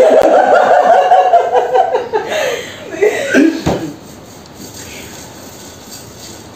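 Hard, helpless laughter in rapid pulses for about two seconds, followed by a few shorter laughs and chuckles that die away about four seconds in.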